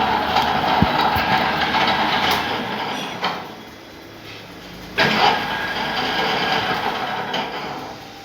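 Lathe cutting a workpiece: a harsh, scraping cutting noise that drops away about three seconds in, starts again suddenly about five seconds in, and fades near the end.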